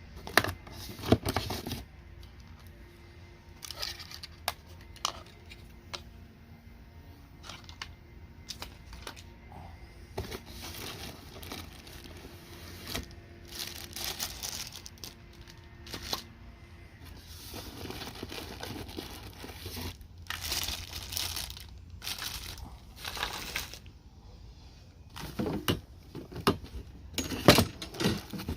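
Packaging being unpacked: paper or plastic torn and crinkled in irregular bursts, with scattered sharp knocks and clicks.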